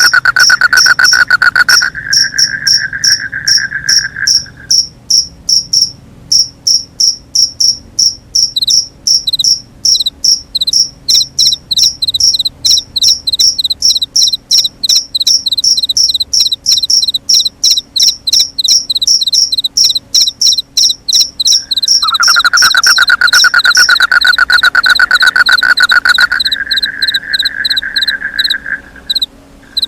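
Crickets chirping at night in a fast, regular series of high chirps. A second, lower continuous trill stops about four seconds in and starts again about eight seconds before the end.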